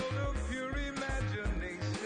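Background music with a steady bass beat under a lead melody of held, gliding notes.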